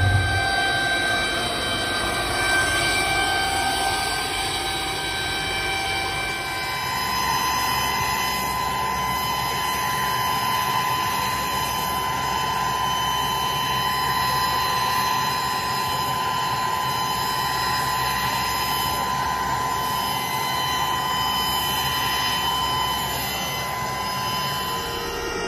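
Workshop machinery running steadily with a continuous metallic whine made of several steady tones; the sound changes abruptly about six and a half seconds in, when a stronger high whine takes over.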